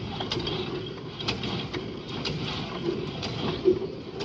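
Farm tractor running, with a steady low rumble and a string of irregular rattling clacks about two a second, the loudest near the end.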